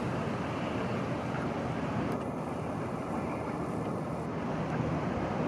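Wind buffeting the microphone, a steady low rushing rumble.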